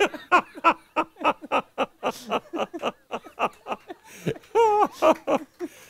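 A man laughing into a microphone: a long run of short pitched "ha" pulses, about three to four a second, with one longer wavering note partway through.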